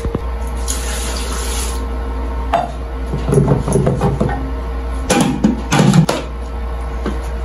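Metal cooking pot and steel plate clattering and knocking against each other and the countertop, in several bursts, over a steady low hum. A brief hiss sounds about a second in.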